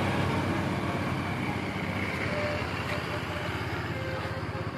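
Bus diesel engine running with a low, steady drone that slowly fades a little.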